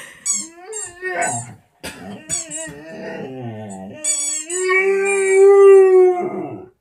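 A Vizsla howling at its squeaky toy: a rubber squeaker squeaks several times in short high bursts while the dog cries in falling pitches, then the dog holds one long steady howl for about two seconds near the end.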